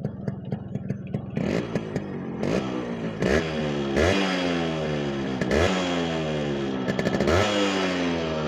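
1996 Yamaha RX 100's single-cylinder two-stroke engine and exhaust: idling, then revved about six times in a row, each rev rising sharply and falling away.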